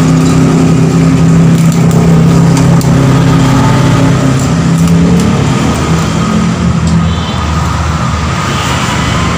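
A motor vehicle's engine running steadily, a loud low hum that fades after about five seconds.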